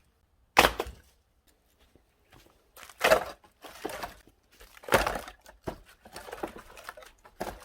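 An axe splitting firewood: three heavy blows about two seconds apart, the later two followed by a short crackle as the wood tears apart, and a lighter knock near the end.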